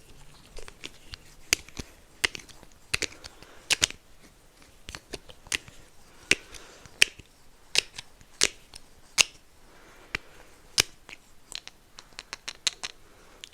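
Irregular sharp clicks and taps, a few to several a second, from small props being handled close to the microphone while eye drops are made ready.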